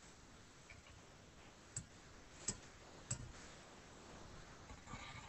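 A few faint, sparse clicks of someone working a computer's keyboard and mouse, spaced roughly a second apart, over a quiet room.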